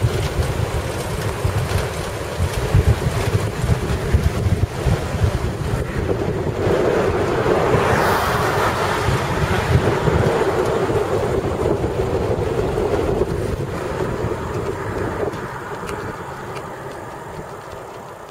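Wind buffeting a handheld camera's microphone on a fast bicycle descent, a steady rumbling rush that eases off over the last few seconds.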